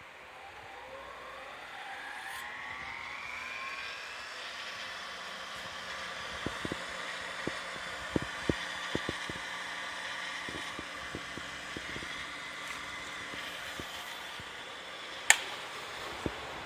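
OSG drill grinder's electric motor and grinding wheel spinning up, a whine rising in pitch over the first few seconds, then running at steady speed. Scattered sharp ticks come through the middle, and there is one louder click near the end.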